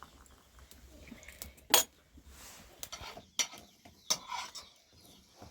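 Several separate sharp clinks and knocks of hard objects striking, the loudest a little under two seconds in.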